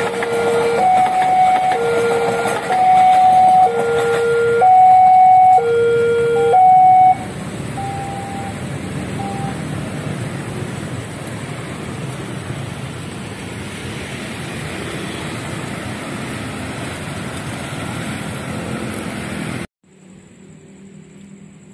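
Railway level crossing warning alarm sounding two alternating tones, each held about a second, stopping about seven seconds in. Then steady road traffic noise as vehicles cross, until the sound drops suddenly near the end.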